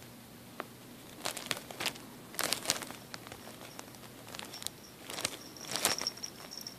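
Thin plastic soda bottle crinkling and crackling as a hand grips and handles it, in several short bursts, after a single click about half a second in. A faint high steady tone sounds near the end.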